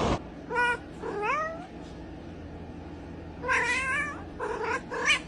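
Domestic cat meowing several times in short calls, one of them rising in pitch.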